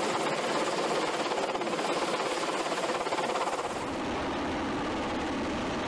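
Helicopter flying overhead, its rotor giving a fast, even chop over a steady rushing noise. About four seconds in this gives way to a steadier, lower rumbling noise.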